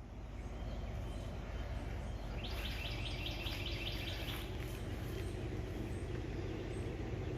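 A songbird's rapid trill of evenly repeated high notes lasting about two seconds, starting a couple of seconds in, over a steady low outdoor rumble.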